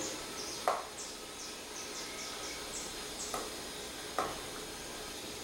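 Cheese knife cutting through a wheel of semi-hard cheese, its blade knocking on a wooden cutting board three times, the first knock the loudest. A run of short, high, falling chirps, about three a second, goes on through the first three seconds.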